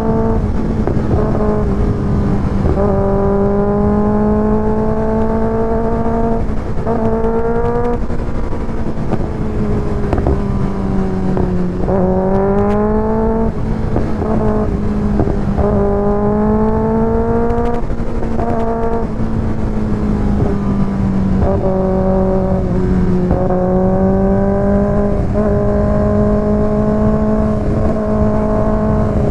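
Kawasaki ZX-6R's 636 cc inline-four running through an IXIL aftermarket exhaust while riding. The revs climb several times in rising sweeps, and each climb breaks off and drops back before the next.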